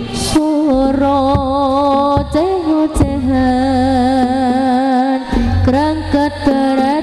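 East Javanese jaranan/bantengan ensemble music: a loud, wavering, sustained melody line over drum strokes and low gong tones, with a sharp crack about three seconds in.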